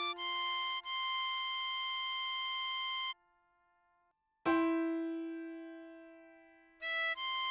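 Harmonica melody over piano chords: a held high C, blow hole 7, for about three seconds, then a short break. A piano chord is struck and rings out fading, and the harmonica notes come back near the end.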